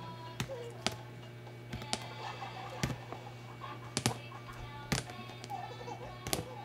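A small plastic toy knocked against a plastic chest of drawers, a sharp tap roughly every second, over quiet background music.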